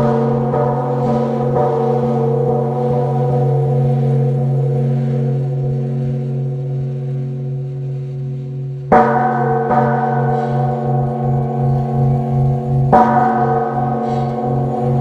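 Large Vietnamese Buddhist pagoda bell ringing with a long, low hum. It is struck twice, about nine and thirteen seconds in, and each stroke rings on over the last with a slow wavering throb.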